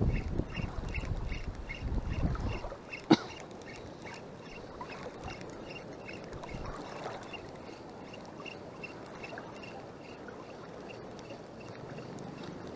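Wind buffeting the microphone and water sloshing around the wading angler for the first couple of seconds, with one sharp click about three seconds in. Under it a faint, even ticking about three times a second, typical of a spinning reel being cranked slowly.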